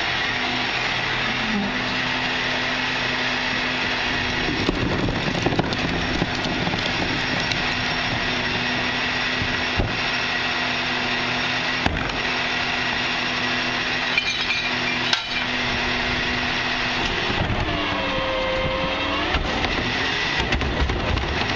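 A 1997 Crane Carrier LET garbage truck's diesel engine running with a steady hydraulic whine, with a few sharp metallic knocks as a wheeled cart is hooked onto the Wayne Royal GT rear loader's claw tipper. Near the end the engine pitch rises and falls as the tipper lifts the cart.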